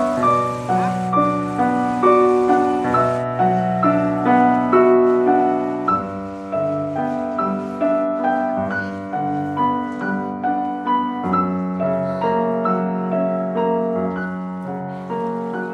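Background music: a gentle solo piano piece, notes struck one after another at a steady, unhurried pace.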